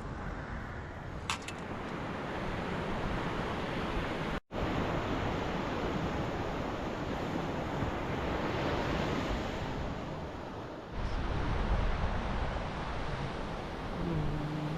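Ocean waves washing on the shore, a steady surf noise mixed with some wind.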